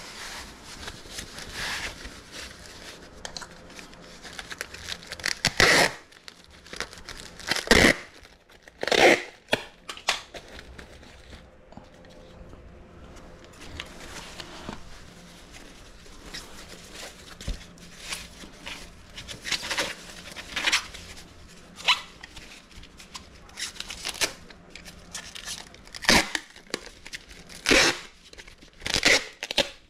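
Packing materials being handled: plastic wrapping crinkling and tape tearing in irregular, sharp bursts.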